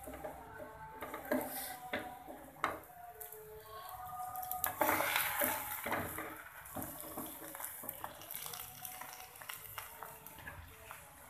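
A wooden spatula presses, knocks and scrapes a paratha against a nonstick frying pan, with the loudest, noisiest scraping about five seconds in.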